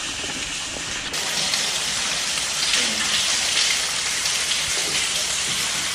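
Steady rushing of water falling and splashing in a cave shaft, a little louder from about a second in.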